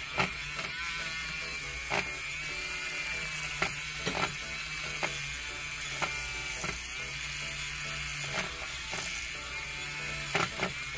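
Battery-powered mini handheld whisk (milk-frother type) whirring steadily in a small glass bowl, whipping the liquid into white foam. Occasional sharp ticks are heard over the whir.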